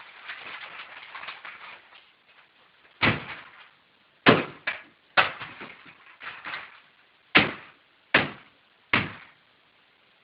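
A hammer striking a Canon Pixma iP4200 inkjet printer: about two seconds of lighter rattling and clattering, then about eight heavy, irregularly spaced blows.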